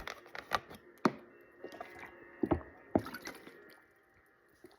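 Water being handled: a scattered series of small wet clicks, drips and splashes, about half a dozen, with the loudest about a second in and around two and a half and three seconds in.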